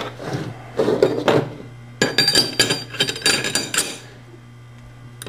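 Metal clicking and clinking from the Glock 23 pistol and its magazine being handled: a few sharp clicks in the first second or so, then a quick run of clicks with a slight metallic ring from about two seconds in, dying down near the end.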